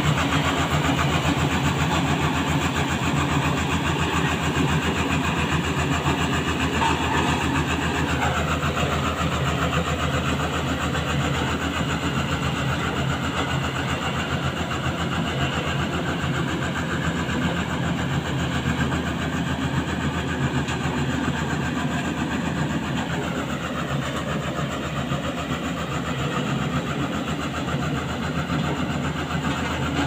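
Lonking single-drum road roller's diesel engine running steadily as the machine drives and turns, with a brief dip in pitch about eight seconds in and again near twenty-three seconds.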